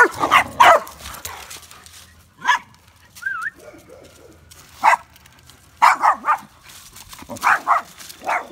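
Dogs barking during play: about a dozen short, sharp barks, many in quick runs of two or three, with short pauses between.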